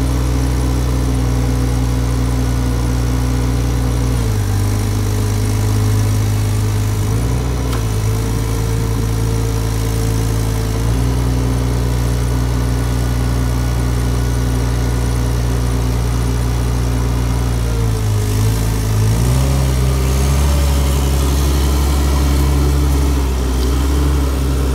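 12,000 lb Hyster LP-gas cushion-tire forklift engine running steadily, its engine speed dipping and recovering several times, with the truck driving off near the end.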